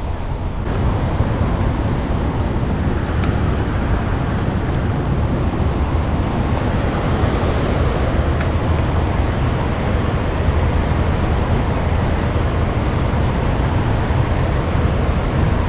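Steady rushing of water flowing out of a spillway: a full, even noise with a deep low rumble.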